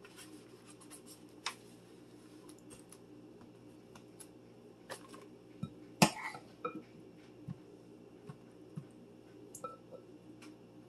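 Light crinkling, rustling and clicking of a disposable aluminium foil pan and tortillas being handled as burritos are rolled and filled, with one sharp knock about six seconds in and a few smaller clicks after it, over a steady low hum.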